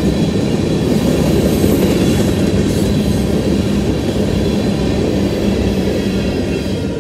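Freight train's covered hopper cars rolling past close by, a steady noise of steel wheels on rail that grows a little quieter near the end as the last car goes by.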